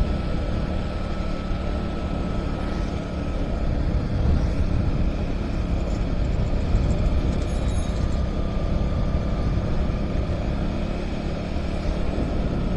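A motorcycle riding at a steady cruise: engine and road noise, with wind on the microphone, holding an even level throughout.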